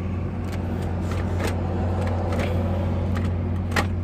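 A steady low hum of a running motor, with several light clicks and knocks over it.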